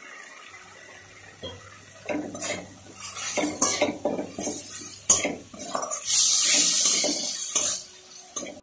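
A metal spatula scraping and stirring spiced masala around a kadai, in repeated strokes starting about two seconds in. The longest, loudest scrape comes about six seconds in. The masala is being stir-fried (koshano) before the fried fish heads go in.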